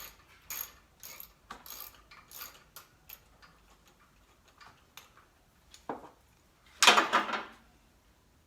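Hand ratchet clicking in short strokes, about two a second and then more sparsely, while backing out the bolts of a 2007 Chevy Equinox's EGR valve. A louder clatter follows near the end.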